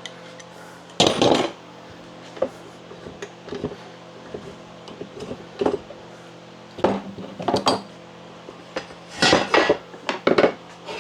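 Hand tools and steel sawmill parts clanking and clinking in scattered separate knocks, with a quick run of several near the end.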